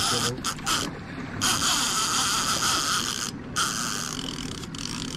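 A fishing reel's ratchet clicker buzzing as line runs off the spool, with two short breaks: one just under a second in and one about three and a half seconds in.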